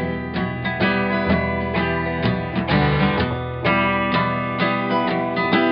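Instrumental break in a live song: an acoustic guitar strummed in a steady rhythm over held low notes, with no singing.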